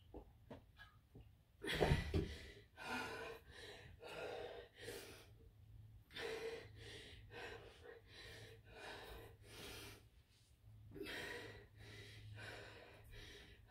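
A person breathing hard, faint, in a string of short breaths about one or two a second, catching breath in the rest after a hard cycling interval.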